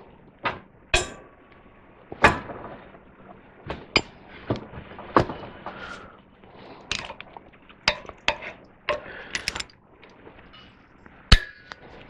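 Sharp metallic clicks and clanks, unevenly spaced at roughly one a second, from a wrench on a long handle being worked to turn the threaded rod of a homemade bandsaw-mill blade tensioner.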